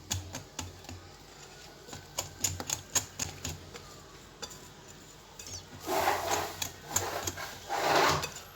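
A utensil clicking and scraping irregularly against a mixing bowl as cake batter is stirred, with two louder, longer scrapes near the end.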